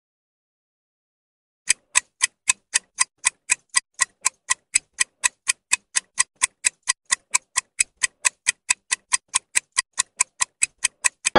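Clock-style ticking sound effect for a quiz countdown timer: even, sharp ticks at about four a second, starting a couple of seconds in and running on to the answer reveal.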